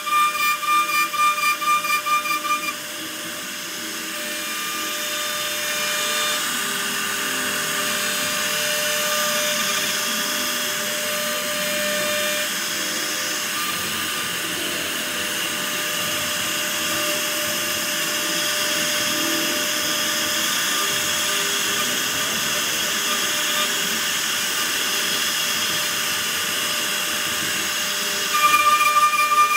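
A woodworking power tool running steadily on wood with a high hiss, cutting in about three seconds in and lasting until just before the end, with no change in level.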